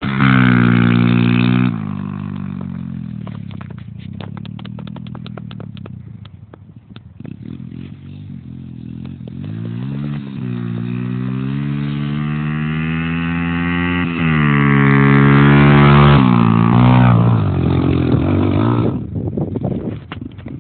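A motor vehicle engine, most like a motorcycle's, running and revving. It is loud at first, falls back a couple of seconds in, then climbs in pitch and loudness to its peak about fifteen seconds in before dropping away near the end. A scatter of clicks and rattles comes in the quieter middle stretch.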